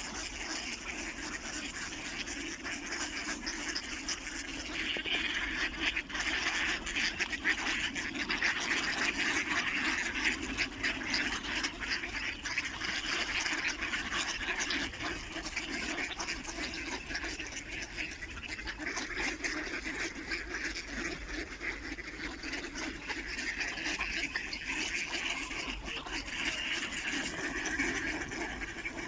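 A large flock of mallards quacking all at once in a dense, unbroken chorus of overlapping calls. It is loudest a few seconds in and swells again near the end.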